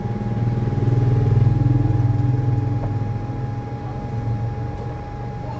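An engine running, growing louder over the first second or two and then fading away, over a steady thin high-pitched whine.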